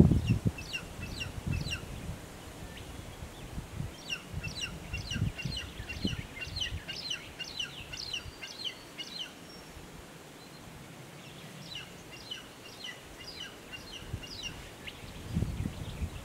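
Wedge-tailed eagle chick calling in quick bouts of short, high, downward-sliding chirps, about four or five a second, three bouts in all. A few low thumps come in between, the loudest at the very start.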